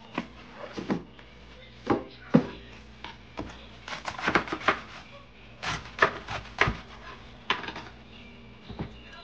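Red cabbage leaves crackling and snapping as they are pulled apart and handled on a plastic cutting board: a series of short, crisp sounds and light knocks, thickest about four and six seconds in.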